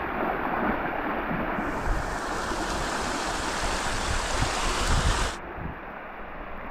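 Rushing water of a mountain gorge stream and pool, a steady hiss of flowing water. There are low rumbling bumps about four to five seconds in, and it drops off sharply just after five seconds.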